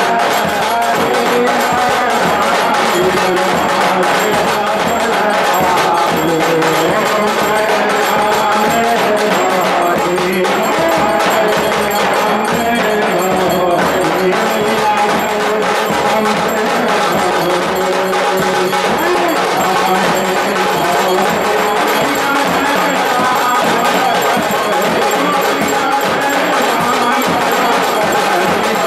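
Music with busy, steady percussion and bell-like tones.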